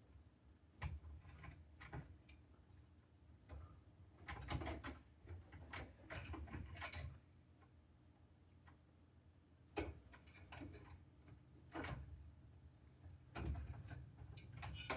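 Faint, scattered clicks and taps of a keypad door lock's parts being handled and fitted against the door as its connecting cable is plugged in, with a busier run of small clicks in the middle.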